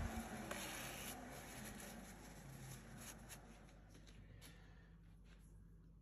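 Metal lathe spinning down after being switched off: its running noise fades over about four seconds to a faint steady hum. A sharp knock comes at the very start, with light rubbing and a few clicks after it.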